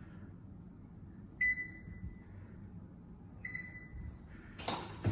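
Electronic control panel of a Whirlpool gas range beeping twice, about two seconds apart, as the oven is set to bake. A brief clatter near the end.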